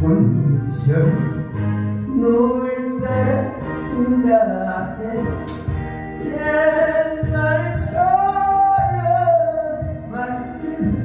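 A singer performing a trot song over instrumental accompaniment, sliding between notes and holding two long notes with vibrato in the second half.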